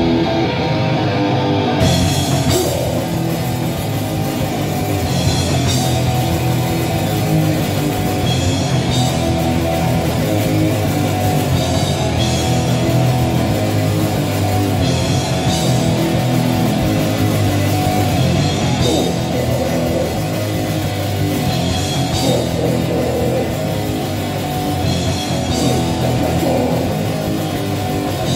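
A punk band playing live: distorted electric guitar, bass and drum kit in a loud, driving instrumental passage.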